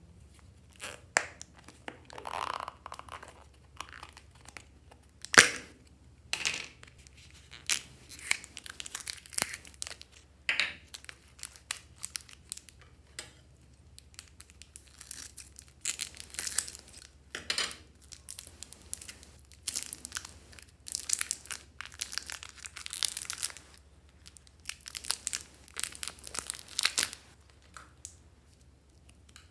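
Thin plastic clay wrappers crinkling, being cut with scissors and torn open, in irregular rustling bursts, with one sharp snap about five seconds in.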